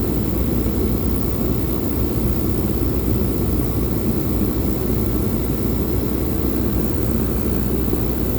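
Diesel air heater running steadily on its highest setting, its fan and burner making a constant low-pitched rushing noise.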